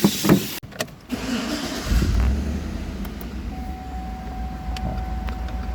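GMC vehicle's engine starting about two seconds in and settling into a steady idle.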